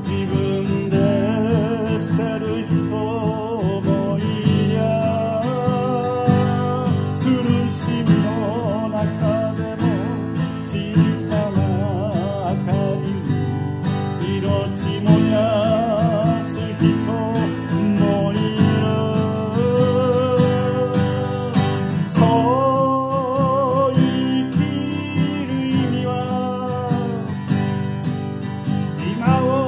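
A man singing with a wavering vibrato on held notes, accompanying himself on a strummed acoustic guitar.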